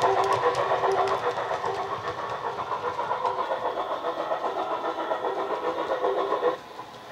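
Model rebuilt Bulleid West Country/Merchant Navy steam locomotive's DCC sound decoder playing steam exhaust beats at a fast, even rate through a speaker in the tender, fading as the train runs away. The sound drops off abruptly about six and a half seconds in, leaving a quieter background.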